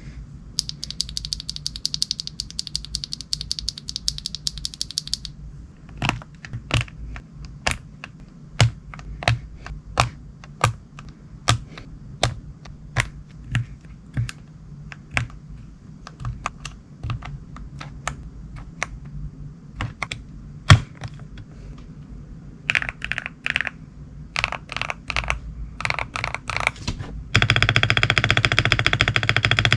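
Mechanical keyboard with lubed Akko V3 Cream Yellow Pro linear switches being typed on. It opens with a very fast run of keystrokes, then single key presses about every half second, a few short quick clusters, and another fast run of keystrokes near the end.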